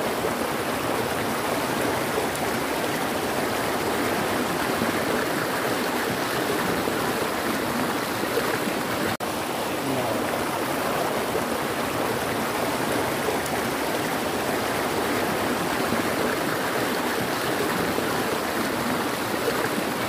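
Rocky forest stream rushing over boulders: a steady, even rush of water, broken by a momentary dropout about nine seconds in.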